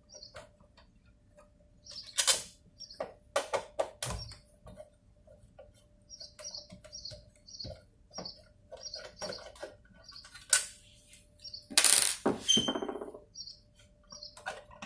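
Irregular metallic clicks and clatter of a screwdriver and small screws being worked on a PLC's casing, with a louder rattle of parts about twelve seconds in. A bird chirps repeatedly in the background, short high chirps about twice a second.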